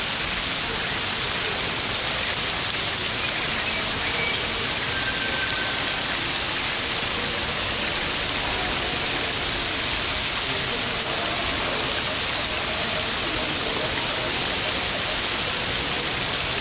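Steady rush of falling water, with a few faint short high chirps around the middle.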